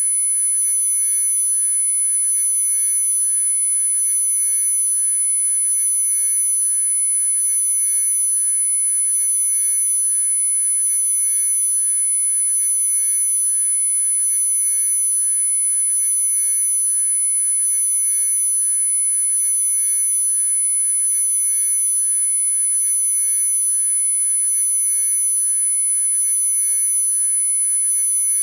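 A steady layered drone of pure electronic sine tones at many pitches at once, from a mid tone up to a very high one that is the loudest, held without change.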